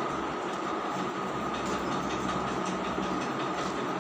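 A steady mechanical drone with a constant high whine running through it, unchanging in level.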